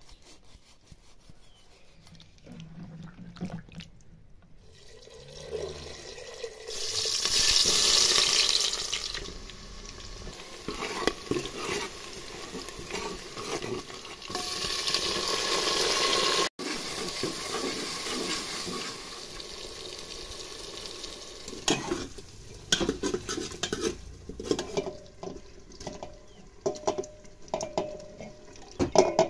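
Cooking in a metal pot: two loud stretches of hissing as ingredients go into the hot pot, then scattered clinks and knocks of a spoon and meat pieces against the pot near the end.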